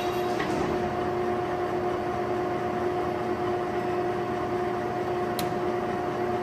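1987 LeBlond Makino Servo Shift 15C engine lathe running under power with the carriage on power feed: a steady mechanical hum with a constant whine. A single light click about five seconds in.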